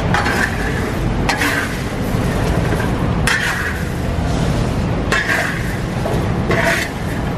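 Metal wok shovel scraping through hot quartz sand and chestnuts in a large iron wok, a rasping, rattling sweep about every second or two, five times. This is hand stir-frying of chestnuts in sand, which carries the heat to them.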